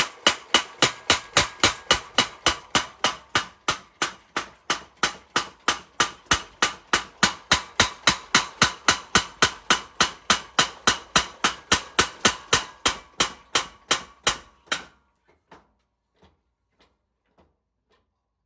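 Mechanical power hammer forging iron: an even run of rapid blows, about three to four a second, each with a metallic ring. The blows stop about four-fifths of the way through, leaving a few faint knocks.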